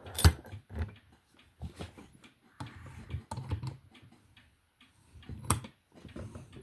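Ace padlock being handled and set up in a lock-holding device: sharp metal clicks and knocks, the loudest just after the start, another about a second in and one more near the end, with fainter ticking between.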